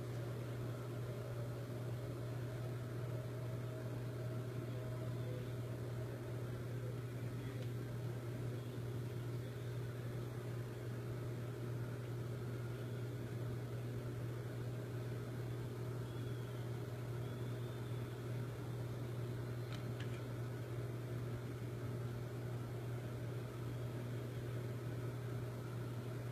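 Steady low hum with an even background hiss and no distinct event; one faint tick about twenty seconds in.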